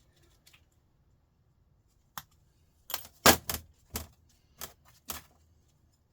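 Small metal scrap parts from a sandwich maker clinking and rattling as they are handled: a single clink about two seconds in, then a quick cluster of sharp clinks around three seconds in, the loudest part, and a few more spaced clinks over the next two seconds.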